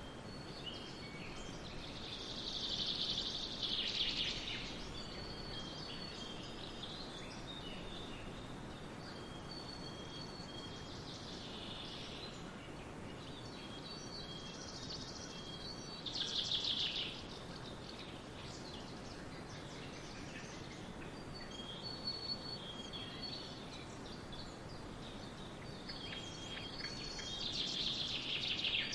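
Woodland birds singing over a steady background hiss: short high whistled notes repeat throughout, with louder trilling song phrases about three seconds in, around twelve and sixteen seconds, and near the end.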